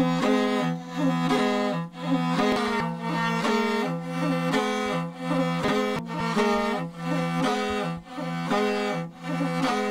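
Morin khuur (Mongolian horsehead fiddle) being bowed: a slow melody over a steady low drone of the lower string, the sound swelling and dipping about once a second with the bow strokes.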